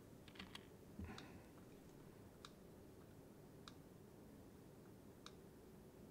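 Faint, scattered clicks of a computer mouse and keyboard over quiet room tone: a quick cluster at the start, then single clicks every second or so.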